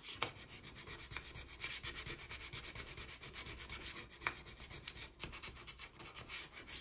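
Sandpaper rubbing on a plastic model-kit part in quick, even back-and-forth strokes.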